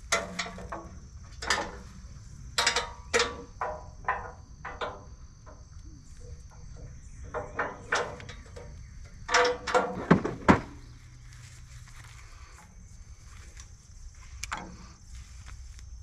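Scattered clicks and knocks as the Woodland Mills HM126 band sawmill head is strapped down and moved along its rails by hand, the loudest few about ten seconds in. Insects buzz steadily in the background.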